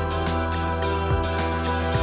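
Background music with held notes over a steady drum beat.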